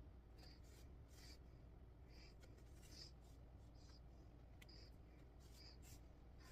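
Faint short rasps of grey embroidery thread being drawn through cross-stitch fabric, a quick irregular series of soft strokes.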